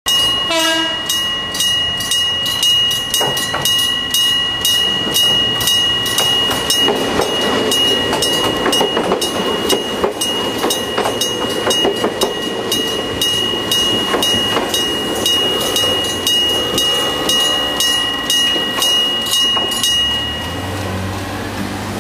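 Level-crossing warning bell at an ungated third-class crossing ringing in a steady rapid ding, about two to three strikes a second, while a train runs past over the rails. The bell stops about twenty seconds in.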